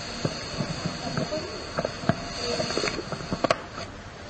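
Steady recording hiss and room noise, with a few scattered clicks and knocks and faint background voices.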